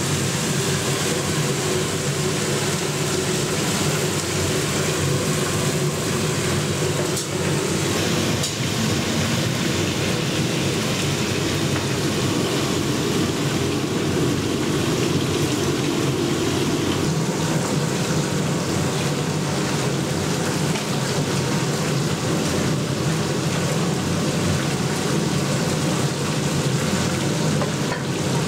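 Fish frying in hot oil in a kazan: a steady sizzle with a low rumble underneath.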